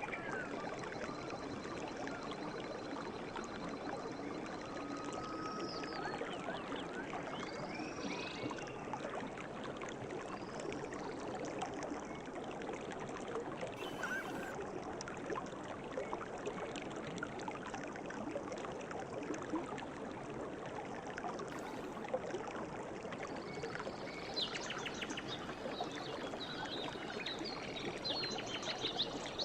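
River water flowing steadily, with birds calling a few times in the first seconds and a run of quick chirps near the end.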